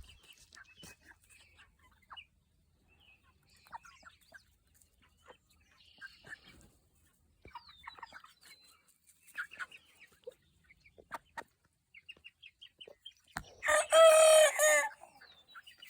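Chickens clucking softly and sporadically, then near the end a young rooster gives one loud, wavering crow of about a second and a half: an immature cockerel still learning to crow.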